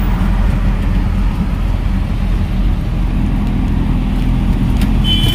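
Auto-rickshaw's small engine running steadily under way, heard from inside the open cabin, with road and traffic noise around it. A brief high beep sounds near the end.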